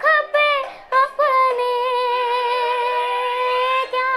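A girl singing alone in a high voice with no accompaniment: a few short sliding notes, then one long held note with a slight waver that breaks off just before the end.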